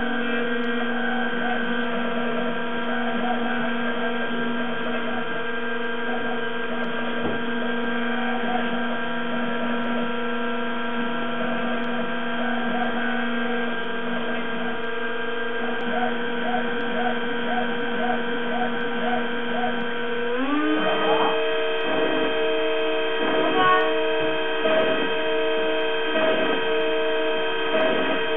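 Roland JWX-30 wax milling machine running as its small cutter mills a jewelry wax model: a steady whine. About twenty seconds in, the whine glides up to a higher, louder pitch and holds there.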